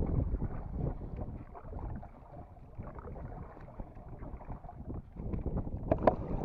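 Wind buffeting the microphone as a low rumble, heaviest at the start and easing off, with small knocks and splashes from the canoe and one sharp knock about six seconds in.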